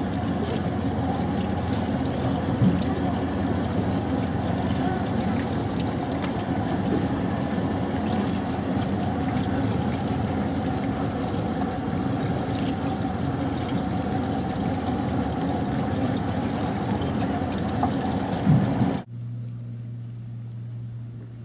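Water sloshing and gurgling close by a boat's hull, with a steady low rumble underneath. About two seconds before the end it cuts off abruptly to a much quieter, steady low hum.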